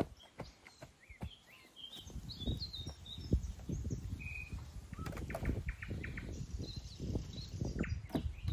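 Small birds chirping with short high calls. From about two seconds in, close rustling and crunching of dry material, full of small clicks, drowns them out and is the loudest sound.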